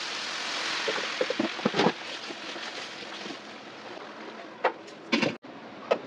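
Water running and splashing, easing off after about two seconds, then a few sharp knocks.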